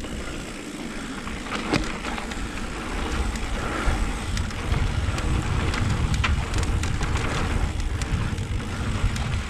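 Mountain bike rolling over a dirt trail: a steady low rumble of wind and tyre noise, with frequent short clicks and rattles from the bike.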